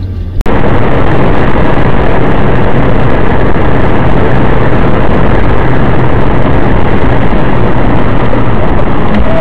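Steady car driving noise picked up by a dashcam inside the cabin at motorway speed: engine, tyre and road rumble with wind, loud and even, cutting in abruptly about half a second in.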